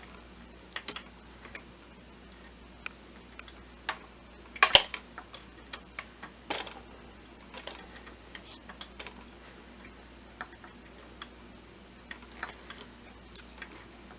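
Scattered small metallic clicks and taps of an Allen wrench working the new shaft screw on a Dillon 1050 reloading press, with one sharper knock just under five seconds in.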